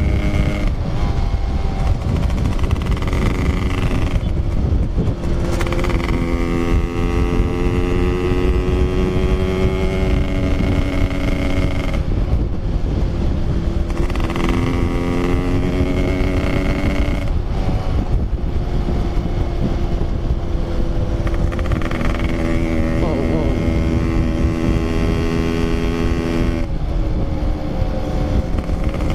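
Yamaha RX-King's two-stroke single-cylinder engine under way, its note climbing slowly and then dropping several times as the bike is ridden along, with a steady low rumble of wind on the microphone.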